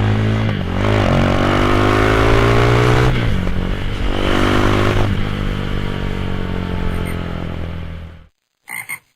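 Motorcycle engine running through a GPR aftermarket exhaust, revved up twice and then easing back toward idle, before the sound cuts off suddenly about eight seconds in. Two short, separate sounds follow near the end.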